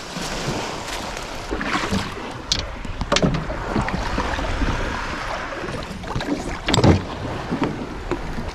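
Wind buffeting the microphone, with splashing and a few sharp knocks as a person wades through shallow water and climbs aboard a small boat. The loudest knock comes near the end.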